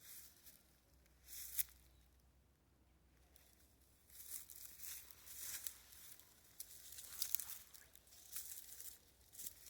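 Irregular rustling and crackling noises in short bursts, one at about a second in and then coming thick and fast from about four seconds on.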